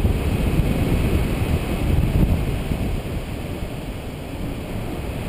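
Wind rushing over the microphone of a paraglider pilot's action camera in flight: a steady low rumbling buffet that eases slightly past the middle.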